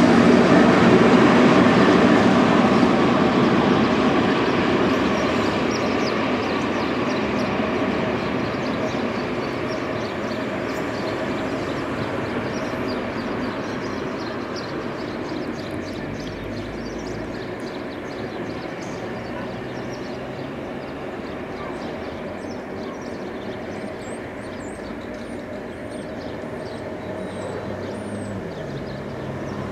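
Electric locomotive running light past close by and then receding: a loud rumble of wheels on rail that peaks in the first few seconds and fades steadily away.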